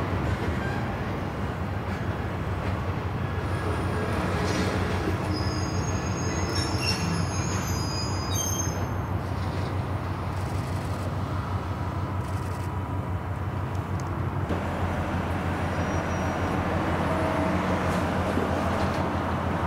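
A train running on the tracks: a steady rumble, with brief high-pitched wheel squeals about five to nine seconds in.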